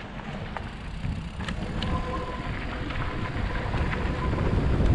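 Mountain bike rolling down a dirt forest trail: a low rumble of tyres on the dirt and wind on the microphone, growing louder, with a few sharp clicks and rattles in the first two seconds. A faint steady whine joins about two seconds in.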